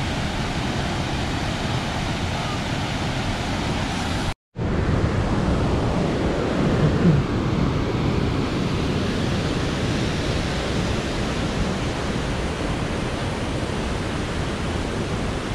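Rushing river water: a steady, dense rush that cuts out for a moment about four seconds in, then carries on the same.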